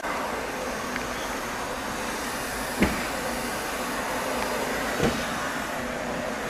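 Steady hissing rush of a firefighting hose spraying foam onto a burning train carriage, with two sharp cracks from the fire about three and five seconds in.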